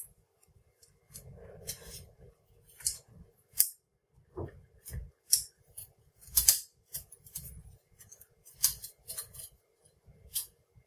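A Noctua NF-A15 fan being clipped by hand onto the front of a Noctua NH-D15 tower heatsink. It makes a string of irregular sharp clicks, taps and scrapes as its plastic frame and wire fan clips knock against the heatsink's metal fins.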